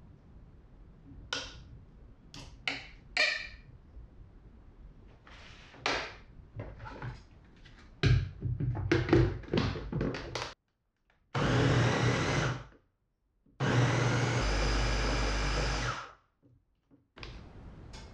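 Knocks and clicks as butter cubes drop into a plastic blender jar and the lid is fitted, then an electric blender runs twice, about 1.5 and 2.5 seconds, puréeing cooked beef liver and butter into pâté.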